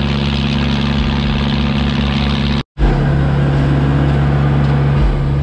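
Fishing boat's engine running steadily under way, a constant low drone with water and wind hiss over it. The sound breaks off for a moment about halfway through, then carries on.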